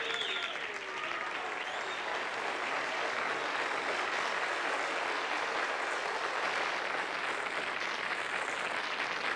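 Audience applauding and cheering, with a few shouts and whoops over the steady clapping.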